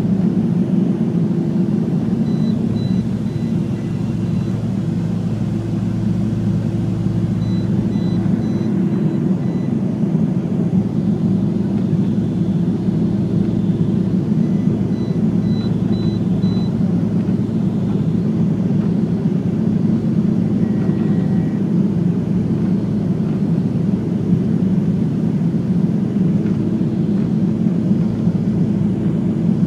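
Jet airliner cabin noise during the climb after takeoff: a steady low rumble of engine and airflow with a constant hum.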